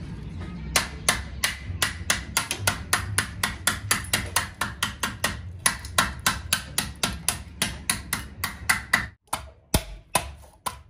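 Hammer striking rapidly and evenly, about four to five blows a second, with a short break about nine seconds in.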